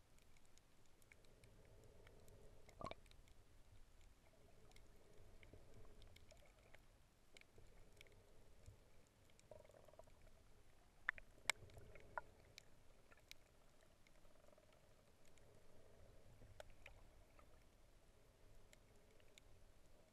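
Near silence underwater: a faint low rumble with scattered sharp clicks, one louder click about three seconds in and two close together a little past halfway.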